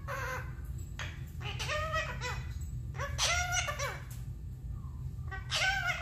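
Pet parrot chattering in about four short bursts of warbling calls, each under a second, the pitch bending up and down.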